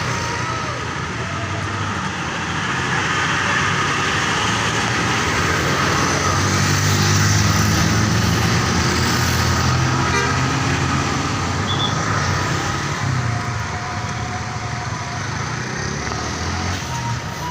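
Large diesel bus engines running close by, swelling louder in the middle and easing off again. Brief horn notes sound at times over the engine noise.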